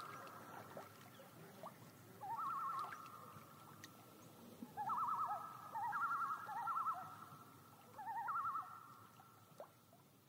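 Common loons giving a series of tremolo calls, the quavering 'laughing' call loons use when alarmed or agitated. About four rapid wavering bursts come a second or two apart, two overlapping near the middle, each trailing off in echo across the lake.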